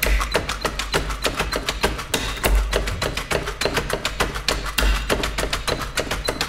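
Computer keyboards and desks played as percussion: a fast, even rhythm of keyboard clicks and taps, with a few low thuds about two and a half and five seconds in.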